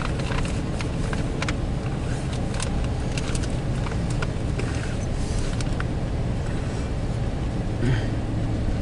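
Loaded Union Pacific coal train rolling past: a steady rumble with scattered clicks and knocks from the wheels and cars.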